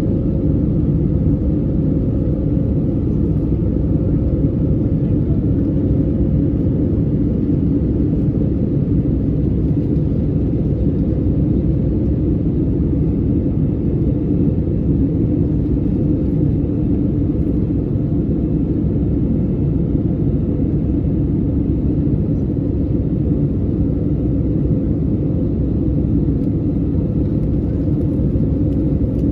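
Steady cabin noise of an Airbus A320neo in flight, heard from a window seat over the wing: a low engine and airflow drone with a faint steady hum running through it.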